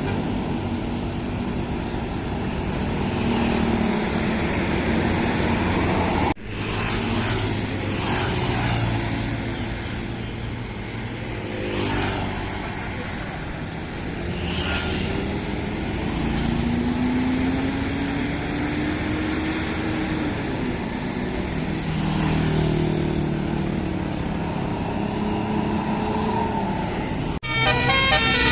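Tour bus diesel engines and passing traffic, the engine pitch rising and falling as buses pull through. Near the end a multi-note telolet (Basuri) horn starts playing a quick stepped tune.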